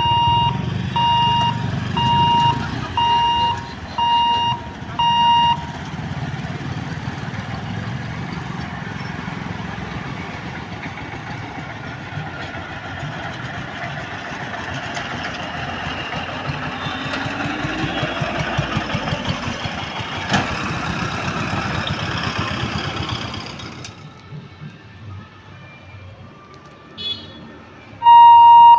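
A level-crossing electronic warning beeper sounds a steady repeating beep about once a second for the first five seconds. A train then passes through the crossing with a continuous rumble and clatter of wheels on rail, which fades out about 24 seconds in. Loud beeping starts again right at the end.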